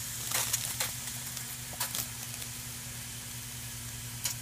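Aeroponic misting nozzles spraying inside a closed root tank: a steady hiss, with a steady low hum underneath and a few faint clicks.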